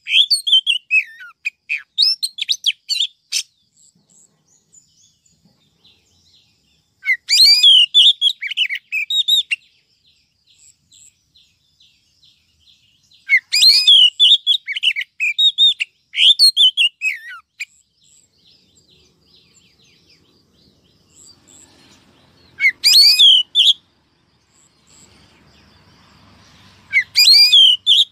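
Female oriental magpie-robin singing: bursts of quick whistled and chirping notes that sweep up and down, about five phrases separated by pauses of a few seconds.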